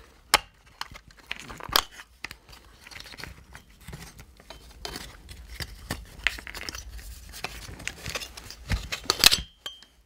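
Plastic top shroud of a 26cc gas engine being worked off by hand: irregular clicks, creaks and scrapes of plastic flexing and catching on the engine, the loudest cluster near the end.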